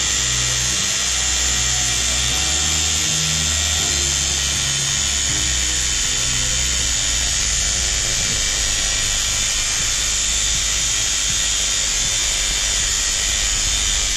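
Electromagnetic vibrator-type hair clipper buzzing steadily with its casing open: the AC-fed coil pulls the steel vibration arm back and forth at mains frequency.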